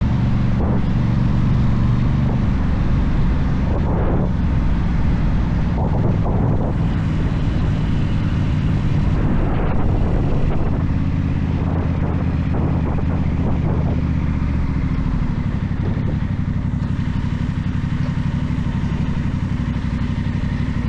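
Aprilia Tuono 660's parallel-twin engine through a cheap aftermarket Chinese exhaust, running with the note rising and falling with the throttle several times, then steadier in the second half.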